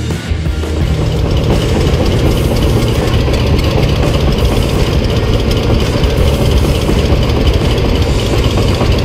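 An engine idling steadily, a dense low running sound.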